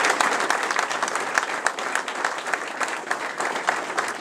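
Audience applauding, many hands clapping together, gradually fading toward the end.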